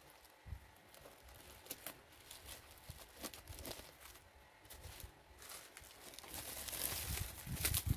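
Bubble wrap crinkling and rustling as hands unwrap a boxed hair clipper: scattered small crackles, getting louder and busier in the last couple of seconds.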